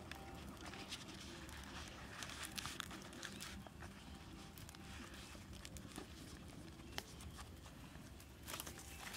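A fresh lotus leaf rustling and crinkling as it is folded by hand into a parcel around goose eggs, with small crackles and clicks.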